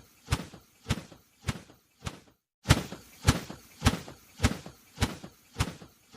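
A run of sharp knocks, about one every 0.6 seconds: four, a short pause, then eight more.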